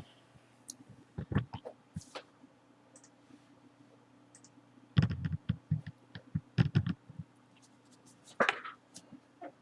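Scattered clicks, taps and scratches of objects being handled on a tabletop, coming in short clusters with pauses between.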